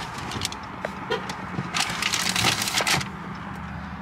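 Steady low hum of a car cabin, with scattered clicks and a crackling rustle of handling that is loudest between about two and three seconds in.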